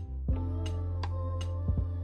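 Background music: an instrumental track with sustained bass and chord tones and a light, steady beat.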